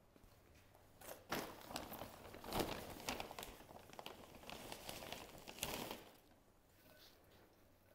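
Crinkling and rustling as a bag of potting mix is handled and the mix is tipped into the garden box, with many small clicks. It starts about a second in and stops near six seconds.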